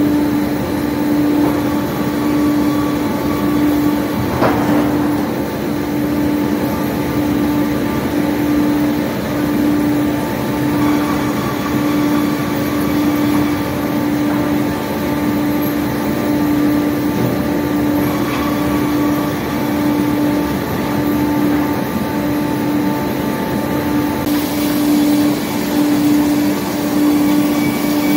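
Sawmill line of circular-saw machines and chain conveyors running, a steady machine hum and rumble. There is a single sharp knock about four and a half seconds in.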